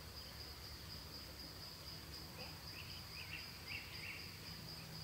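An unseen insect trills steadily at a high pitch. Between about two and four seconds in, a handful of short chirps rise over it. A faint low hum sits underneath.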